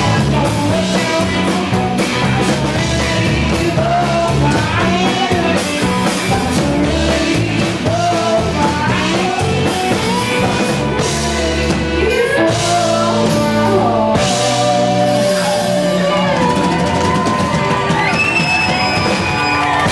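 Live rock band playing: a woman sings lead over guitar and a drum kit.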